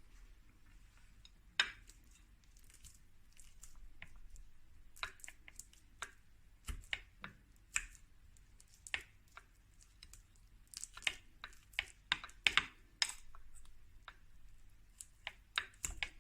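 Scattered light clicks and taps of kitchen utensils and containers being handled, coming thicker about two thirds of the way in and again near the end.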